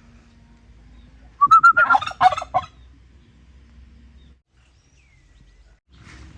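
Turkey gobbling once: a loud, rapid rattling burst of notes lasting about a second, starting about one and a half seconds in.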